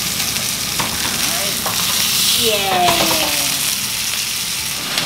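Bone-in tomahawk ribeye steak searing in hot oil on a metal roasting tray: loud, steady sizzling with a few faint clicks as the meat is browned and turned.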